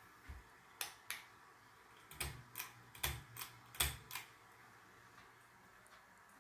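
Ceiling fan pull-chain switch clicking as the chain is tugged: about nine sharp clicks over some three and a half seconds, in quick pairs and singles.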